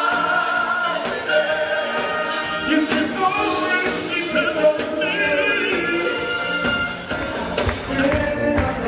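A Motown vocal group singing live with a backing band of drums, guitar and horns.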